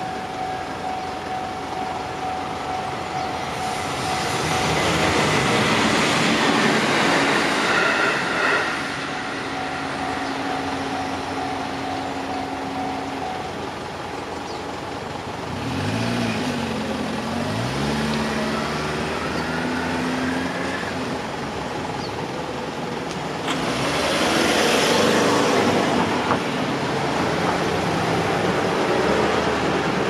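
Japanese level-crossing warning bell ringing steadily while a train rushes past for several seconds; the bell stops a few seconds after the train clears. Then the waiting cars pull away across the crossing, engines rising in pitch as they speed up, and another car passes near the end.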